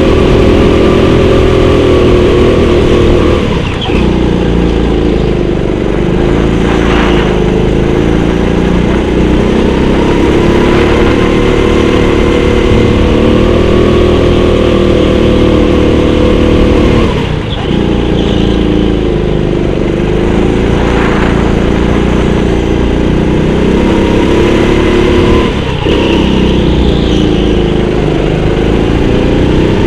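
Rental go-kart's engine running at high revs through a lap, loud and close to the microphone. The revs drop briefly three times, about four, seventeen and twenty-five seconds in, as the driver eases off for corners, then climb back up.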